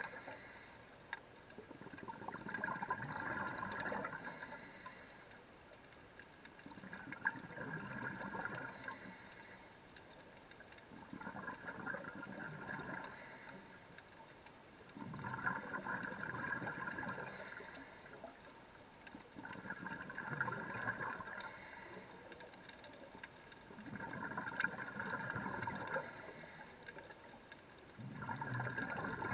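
Underwater breathing of a scuba diver: the regulator's exhaled bubbles gurgle and rush, swelling and fading in a steady cycle about every four seconds.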